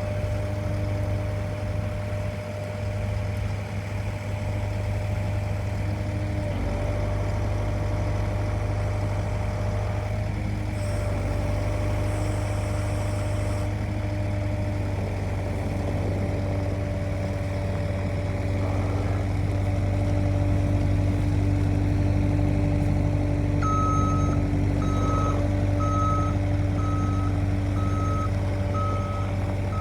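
New Holland L318 skid steer's diesel engine running steadily. Near the end, its backup alarm starts beeping about one and a half times a second as the machine reverses.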